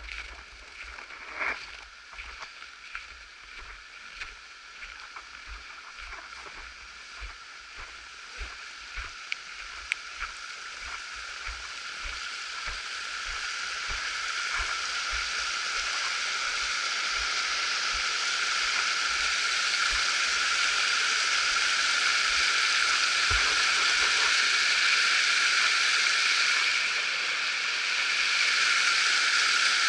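Footsteps in packed snow, a run of short knocks, while the rushing of a small open stream grows steadily louder from about a third of the way in and covers them near the end.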